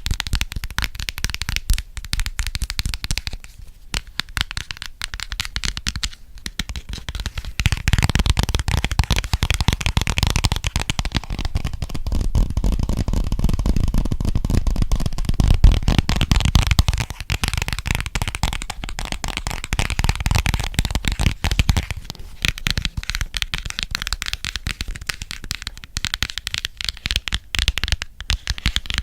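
Fast finger tapping on an object close to the microphone: a dense run of quick clicks, fuller and heavier from about eight seconds in until about twenty-two seconds.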